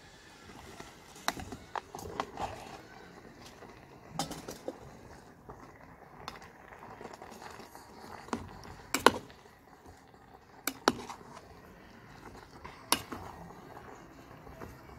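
Metal spatula and steel bowl clinking and scraping against a steel cooking pot as cooked macaroni is tipped in and stirred through a thick mayonnaise mixture, with irregular sharp knocks, the loudest about nine seconds in.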